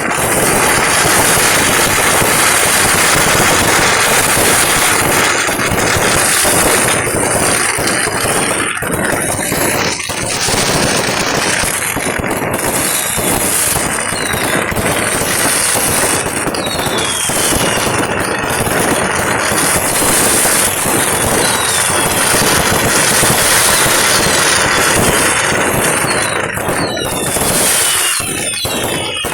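Dense, continuous barrage of fireworks going off, a crackling roar of overlapping bangs. Falling whistles cut through it several times in the second half.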